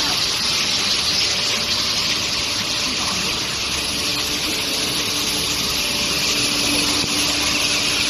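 Steady rushing, hissing machinery noise of a long-bar induction heat-treatment furnace line running, with a thin high whine throughout and a low steady hum joining about three and a half seconds in.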